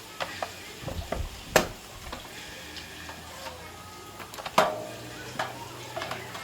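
Repair-work clatter from tools and parts being handled: scattered light clicks and knocks, with a sharper knock about one and a half seconds in and another a little past the middle.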